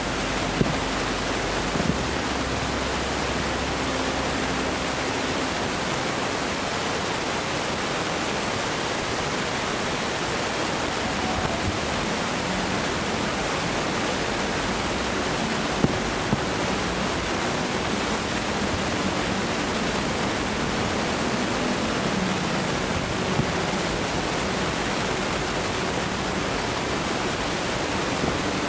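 Steady rushing hiss, with a few faint short knocks.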